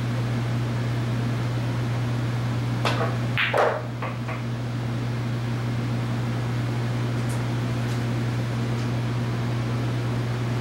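A pool shot: the cue tip strikes the cue ball, followed within about a second by sharp clicks of billiard balls hitting each other, the loudest halfway through the run of clicks. A steady low hum runs underneath throughout.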